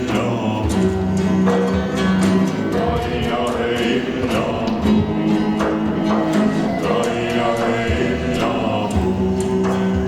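Music with singing over a steady low drone.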